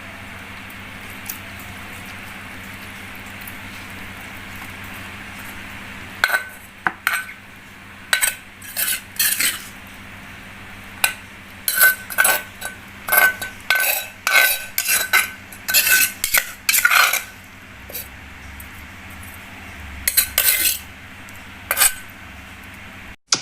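Metal utensil clinking and scraping against a dish in a quick, irregular series of strokes, some ringing briefly, starting about six seconds in over a low steady hum.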